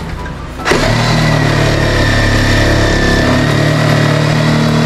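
Handheld power tool starts abruptly under a second in and runs steadily at one even pitch, cutting into old wooden wall boards to enlarge a small hole for an outlet box.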